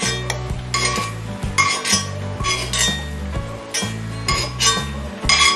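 A slotted stainless steel spoon scraping and clinking against a cast iron skillet and a steel bowl as onion pieces are scooped out. Background music with a steady low bass line plays underneath.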